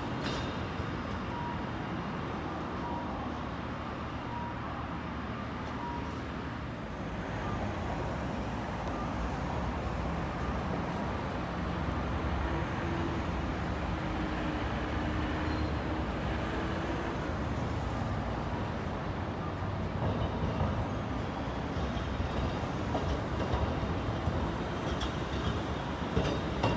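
Street traffic noise and the running rumble of a two-car Fukui Railway tram as it approaches and crosses an intersection on street track, growing louder over the second half. A few sharp clacks come near the end as it passes.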